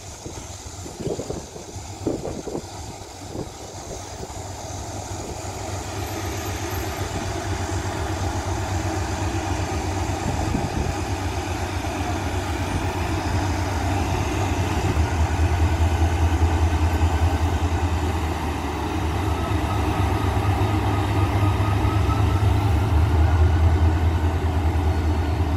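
Diesel locomotive's engine rumbling as the locomotive runs slowly up to couple onto the train's carriages, growing louder as it draws near. A few sharp knocks sound in the first seconds.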